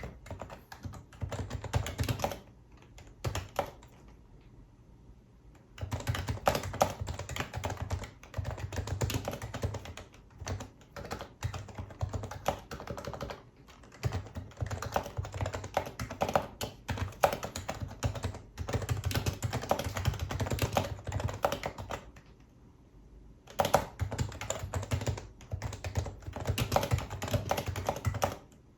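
Fast typing on a Happy Hacking Keyboard Professional HYBRID Type-S, its electrostatic capacitive (Topre-type) keys giving a soft, muted clack. The typing comes in bursts, with short pauses a few seconds in and about two thirds of the way through.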